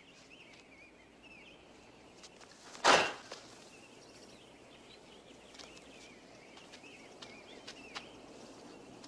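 Birds chirping faintly in the background. About three seconds in comes a single loud, sharp hit with a short tail: a martial-arts kick landing.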